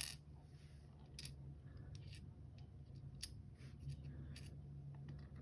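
Small metallic clicks and taps from working on the parts of a disassembled euro cylinder lock, with one sharp click at the start and about five fainter ones scattered after it. A low steady hum sits underneath.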